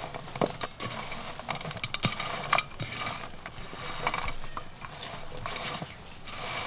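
Crisp fried potato fries being tossed by hand in a metal tray to coat them with spice: an irregular rustling clatter of fries rubbing together and against the metal, with scattered light clicks.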